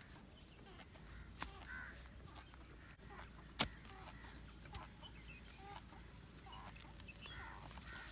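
A hoe chopping into grassy turf, with one sharp knock of the blade striking the ground about three and a half seconds in as the loudest sound. Chickens cluck faintly in the background with several short calls.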